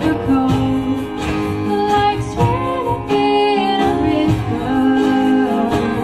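A band playing a rock song: a singer holding long, wavering notes over guitar and a steady drum beat.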